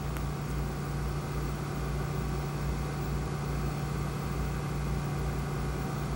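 Steady machine hum with a low throb that pulses about twice a second under an even hiss, and a faint click just after the start.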